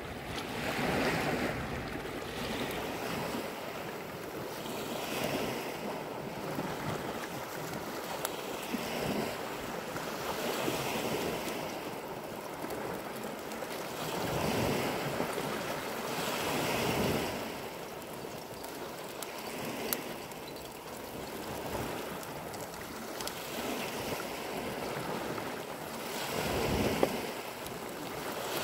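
Small sea waves washing against a rocky shore, the surf swelling and falling back every couple of seconds, with a sharp click near the end.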